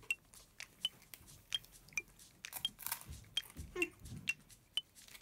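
Plastic snack wrapper crinkling and a sugar-coated biscuit being bitten and chewed, a run of short, sharp crackles and crunches.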